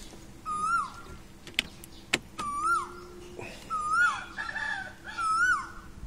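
An animal's call repeated four times, about every one and a half seconds: each a short held note that rises and then drops away, with a couple of sharp clicks between the calls.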